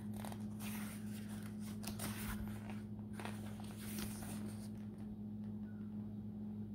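Paper pages of a paperback book being turned and leafed through: a few soft rustles and swishes that stop about five seconds in, over a steady low hum.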